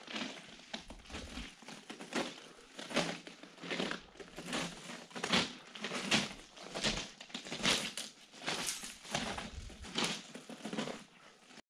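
Footsteps of a person walking at a steady pace along the bare floor of a disused railway tunnel whose track has been lifted, each step a short crunch, a little more than one a second.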